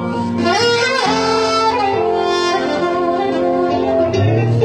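Live band music: a saxophone plays long held melody notes, sliding up about half a second in, over bass and guitar.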